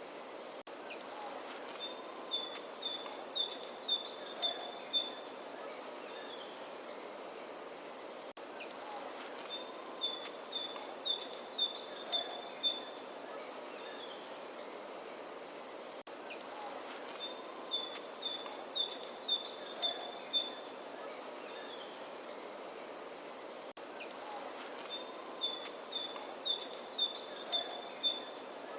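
Songbird singing the same phrase over and over, about every eight seconds: a quick falling slur, then a rapid run of short, even notes. Behind it is a steady faint outdoor hiss.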